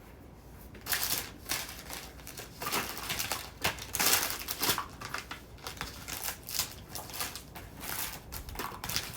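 Plastic packaging crinkling and rustling in irregular bursts as lash-kit items are handled and unwrapped.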